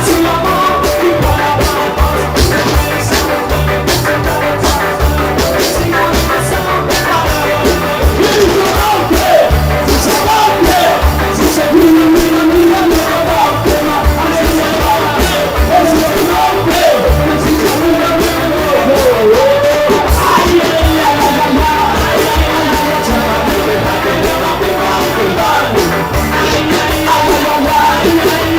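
A ska band playing live, with drums, bass and a lead singer over a steady upbeat rhythm.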